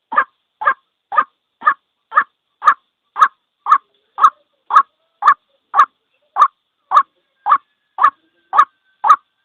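White-breasted waterhen calling: a short, harsh note repeated evenly at about two a second.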